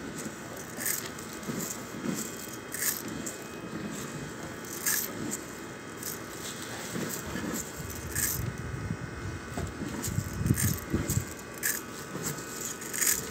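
Dried grain being handled around a metal basin: scattered sharp clicks and rattles of kernels against the metal, with soft scraping and a few low handling knocks.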